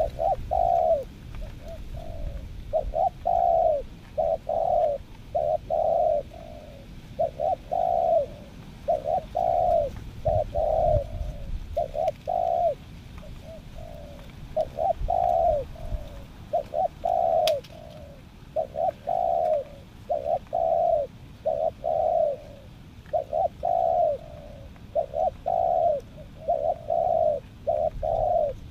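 Spotted dove (tekukur) cooing without a break: short, low, down-curving coos in groups of two or three, phrase after phrase. It is a decoy bird being trained to lure wild doves.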